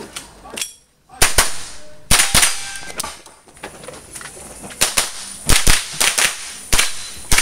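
A .22 rimfire mini-rifle fired rapidly at a practical shooting stage, sharp cracks in quick pairs and triples with short pauses between strings, about a dozen shots in all.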